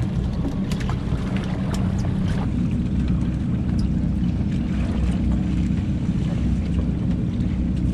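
Fishing boat's engines running steadily underway, a low drone with water and wind noise over it. A few light clicks and knocks come in the first few seconds.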